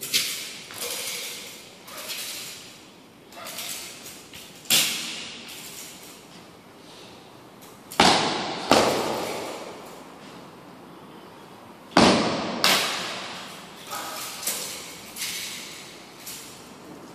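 A long wooden spear swung and thrust through tai chi spear movements, its rushing swishes broken by sharp thuds that echo in a large hall. The loudest thuds come in pairs, about eight and twelve seconds in.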